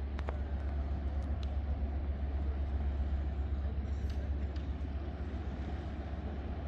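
Steady low outdoor rumble of harbour ambience, with a few faint sharp clicks near the start.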